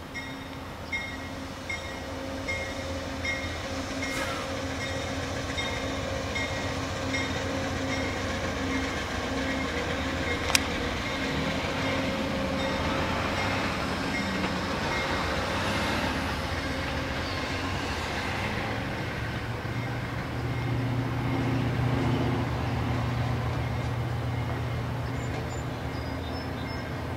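Amtrak passenger train moving along the track, its diesel locomotive running steadily under the rumble of the cars, growing louder about twenty seconds in. A single sharp click sounds about ten seconds in.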